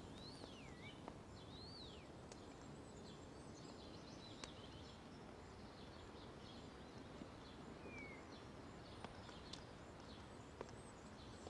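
Faint outdoor ambience: a low steady hiss with a few birds chirping, two falling-and-rising calls in the first two seconds and a short one about eight seconds in, plus a few faint ticks.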